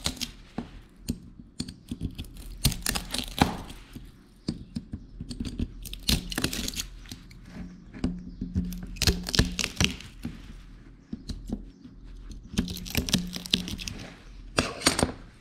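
3D-printed plastic infill being cracked and pried out of a cavity with slip-joint pliers: irregular bunches of sharp cracking, snapping and scraping clicks as the brittle lattice breaks apart.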